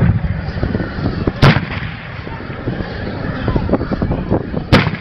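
Carbide shooting with milk churns: each churn goes off with a single loud bang as its acetylene charge ignites and blows out the lid. Three bangs: one right at the start, one about a second and a half in, and one near the end.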